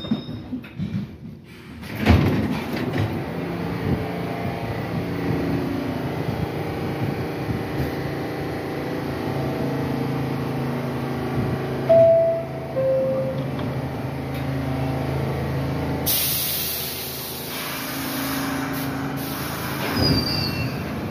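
Subway train standing with a steady electrical hum. There is a loud knock about two seconds in, a two-note falling chime around the middle, and a few seconds of hissing air near the end.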